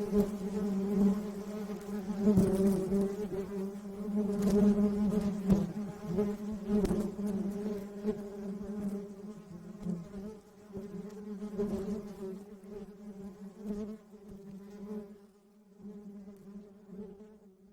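Swarm of Africanized honey bees (killer bees) buzzing in a dense, steady drone, with a few sharp ticks in the first seven seconds; the buzzing fades away over the last few seconds.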